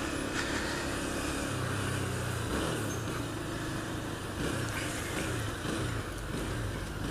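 Motorcycle engine running at low revs while riding in slow traffic, its low hum wavering a little in pitch, over a steady wash of road and traffic noise.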